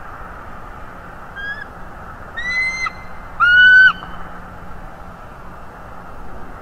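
Bald eagle calling: three high, whistled notes, the first short and faint, the next two about half a second each, the last the loudest.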